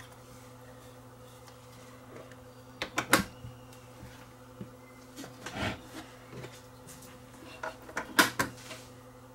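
Knobs and parts being handled and pushed into place on a reel-to-reel tape deck's front panel: a pair of sharp clicks about three seconds in, a short rattle around five and a half seconds, and a louder cluster of clicks about eight seconds in, over a steady low hum.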